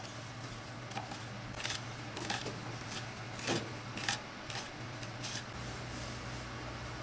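Kitchen knife slicing shallots on a wooden cutting board: about eight sharp taps of the blade on the board at uneven intervals, stopping a little after halfway.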